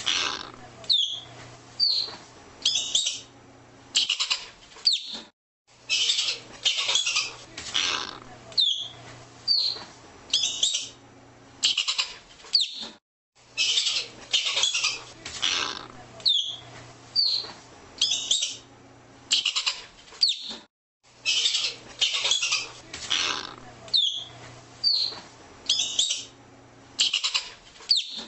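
Arctic ground squirrel calling: clusters of loud, high-pitched chirps and squeaks, some sweeping down in pitch. The same sequence of calls repeats about every eight seconds, with a short silent break each time.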